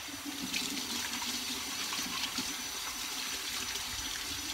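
Water running steadily from a kitchen tap and splashing over a diffuser lid as the soap is rinsed off.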